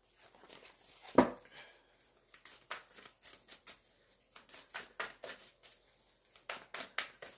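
Oracle cards being handled and shuffled by hand: scattered soft clicks and rustles of card against card, with one sharper knock about a second in.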